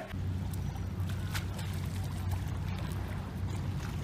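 Water lapping and splashing against a concrete pier at the sea's edge, with a steady low hum underneath.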